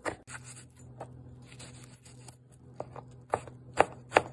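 Kitchen knife chopping garlic and then red onion on a plastic cutting board: one chop at the start, a quieter stretch, then a run of chops coming closer together near the end.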